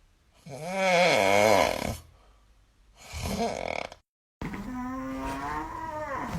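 A person snoring loudly: one long snore with a wobbling, fluttering pitch, then a shorter, weaker one. After an abrupt cut, a different drawn-out sound with a steady pitch follows.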